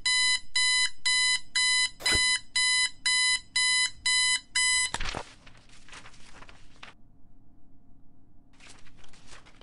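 Digital alarm clock beeping, a pitched electronic beep repeating about twice a second. About five seconds in the beeping cuts off with a loud thump, followed by soft rustling.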